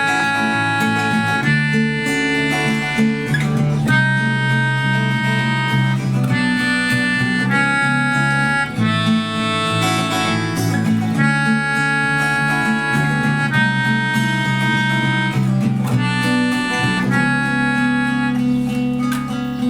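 Instrumental intro of a pop-rock song: a harmonica plays a melody of long held notes over acoustic guitar chords.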